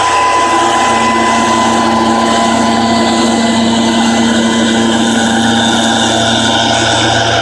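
Stihl SR 440 backpack mist blower, its two-stroke engine and fan running steadily and loud while blowing spray. The pitch holds constant throughout.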